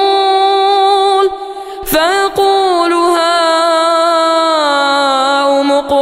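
A single voice chanting Quran recitation in long, drawn-out melodic notes. It breaks off briefly a little over a second in, then holds on while the pitch steps slowly lower.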